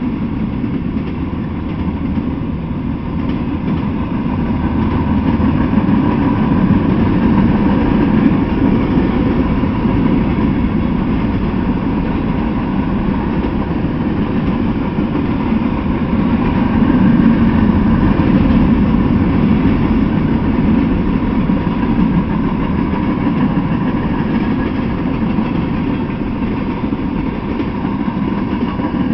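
Freight train cars (tank cars and covered hoppers) rolling past on the track: a steady low rumble of wheels on rail that swells a little twice.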